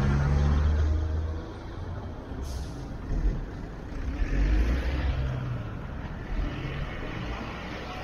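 Road traffic heard from a moving car: a low engine and tyre rumble that swells twice, with a short hiss about two and a half seconds in.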